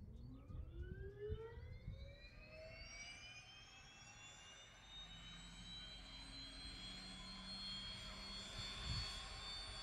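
Pratt & Whitney Canada PT6A-66B turboprop engine of a Piaggio P180 Avanti II starting up: a whine rises steadily in pitch over the first five seconds as the turbine spools up, then settles into a steady high whine.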